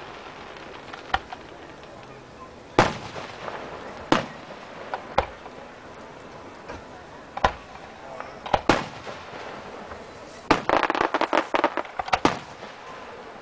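Aerial fireworks shells bursting: separate sharp reports a second or more apart, then a quick flurry of crackling pops near the end.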